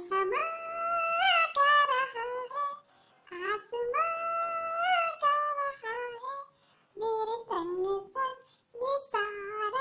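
A high-pitched singing voice sings a song in phrases of held notes, with short gaps between them, laid over the pictures as the dog's "singing".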